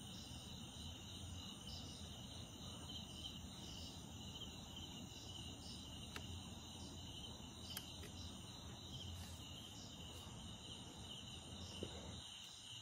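Crickets and other night insects trilling steadily in a high, pulsing chorus, with a faint low background hum underneath and two faint clicks near the middle.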